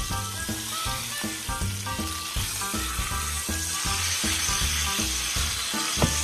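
Beef roast sizzling as it sears in hot butter and olive oil in a stainless steel pan, being turned over with tongs, with a sharp knock near the end. Soft background music plays underneath.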